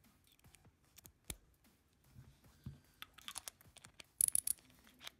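Small metallic clicks and taps as the double-ended bits and nut-driver sleeve of a Klein 6-in-1 ratcheting stubby screwdriver are pulled out of and pushed back into its nose. A brighter, tinkling cluster of clicks comes near the end.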